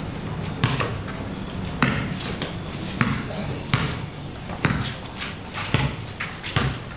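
Basketball bouncing on a concrete court: sharp thuds at irregular intervals of about a second, with players' voices calling out.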